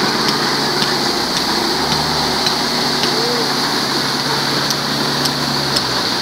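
Dump truck tipping a load of gravel, the stones sliding out of the raised bed in a steady rushing pour over the truck's running engine.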